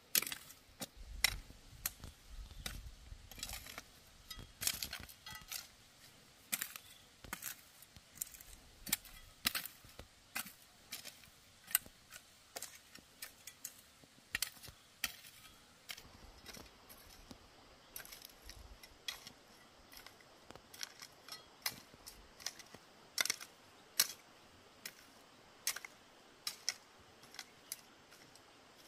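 Hand hoe's metal blade chopping and scraping into dry, loose soil in short, sharp strikes, irregular, about one or two a second.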